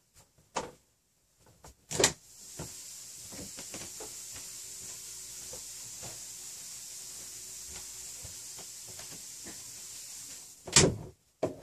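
A sharp clack, then a steady high hiss for about eight seconds, cut off by another loud clack.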